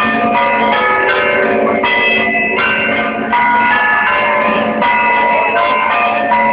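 Church bells ringing, many overlapping strokes of different pitches following one another every half second or so, over a steady low hum.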